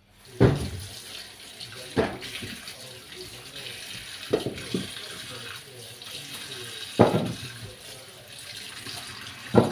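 Kitchen tap turned on and running steadily into a stainless-steel sink while Brussels sprouts are rinsed under the stream. About six sharp knocks stand out above the water, louder than the running tap.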